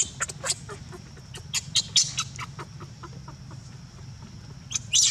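Newborn macaque giving a rapid, irregular string of short, high-pitched squeaks, ending in a call that falls in pitch. A steady low hum runs underneath.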